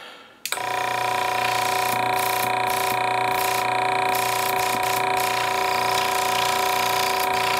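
A small electric air compressor, modified with new valving so it pumps air out and pulls it back instead of building pressure, switches on about half a second in and runs with a steady buzzing hum.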